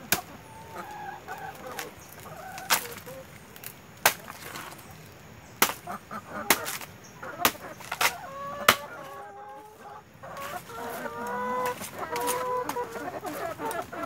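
A knife chopping slices off a banana plant's trunk, with sharp chops about once a second or so through the first nine seconds. Hens cluck between the chops, more busily near the end.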